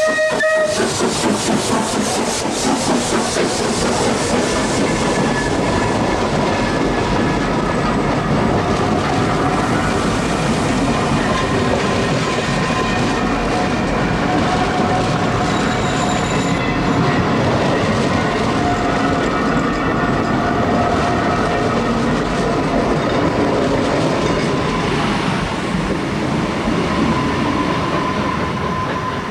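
GNR No. 171, a 4-4-0 steam locomotive, working hard as it pulls away with its train: rapid exhaust beats in the first few seconds, then a steady rattle of coach wheels over the rail joints with thin squealing tones.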